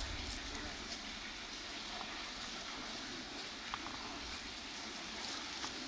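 Steady outdoor background noise, an even hiss with a low rumble, with a few faint clicks.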